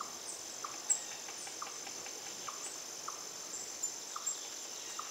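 Forest insects drone steadily and high-pitched. Over this, short chirps repeat about once a second, with scattered sharper, higher peeps from birds or insects. The loudest peeps come about a second in and again after four seconds.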